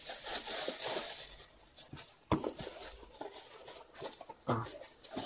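Plastic bag crinkling and rustling as hands dig moist clay out of it, with a single light knock about two seconds in and a few fainter rustles after.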